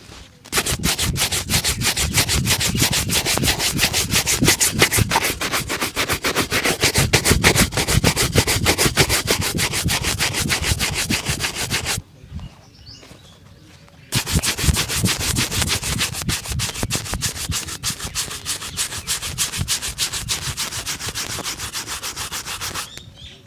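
A leather shoe being buffed during a shoe shine in rapid, even back-and-forth strokes, in two long runs with a pause of about two seconds between them.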